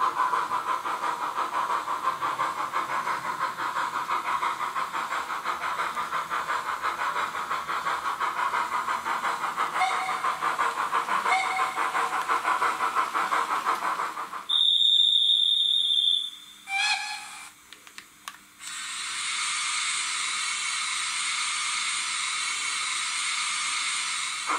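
Sound decoder of an H0 model Prussian G 8.2 steam locomotive: steady rhythmic chuffing as it runs, then a loud high whistle blast, a shorter lower whistle, and a steady steam hiss for the last several seconds as it stands.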